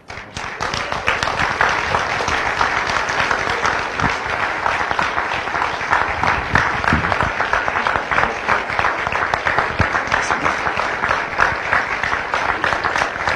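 A large audience applauding, starting right after the last line of a poem and building within about half a second to a steady, dense round of clapping.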